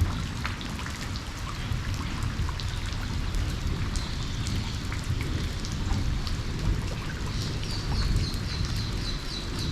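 Steady rain falling on puddles and leaves, with single drops hitting close by and a low rumble underneath. From about three-quarters of the way in, a quick run of high chirps sounds over the rain.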